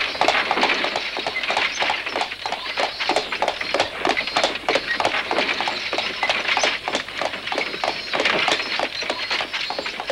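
Horse-drawn carriage going by: a horse's hooves clip-clopping in a quick, even rhythm, with the carriage wheels rolling.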